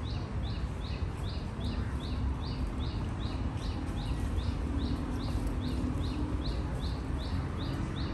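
A bird repeating one short, high chirp about two and a half times a second, on and on, over a steady low rumble.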